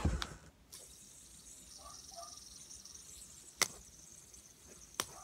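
Handling sounds of a light-up fidget spinner being spun in the hand: a low thump at the start, then a faint steady hiss broken by two sharp clicks, about three and a half seconds in and near the end.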